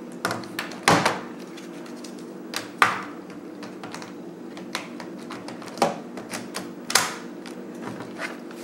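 Hard plastic clicks and knocks of a laptop being turned over on a table and its battery pack fitted into the back: a few separate sharp clicks, the loudest about one, three and seven seconds in.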